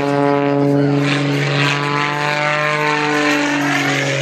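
Propeller airplane engine running loud and steady, a droning stack of tones that slowly drops a little in pitch as the plane moves past.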